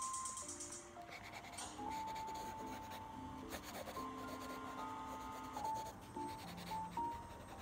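Mechanical pencil scratching and rubbing across sketchbook paper in short drawing strokes, with soft music of held notes underneath.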